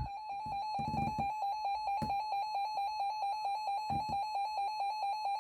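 Electronic alert alarm beeping: one high tone pulsed rapidly and evenly, the alarm of a warning receiver going off as a new severe weather warning comes in. A few low thumps sound under it, about half a second, one second, two seconds and four seconds in.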